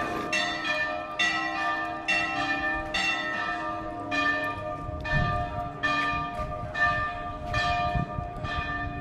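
Church bells ringing a peal, struck a little under once a second, with each stroke ringing on into the next.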